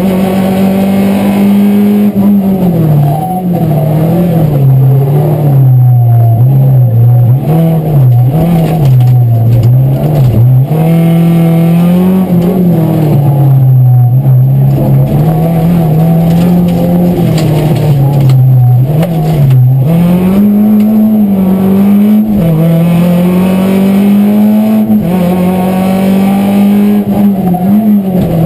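A Renault Clio Ragnotti race car's four-cylinder engine, heard loud from inside the cabin. It is driven hard, its pitch climbing and dropping again and again through gear changes and corners.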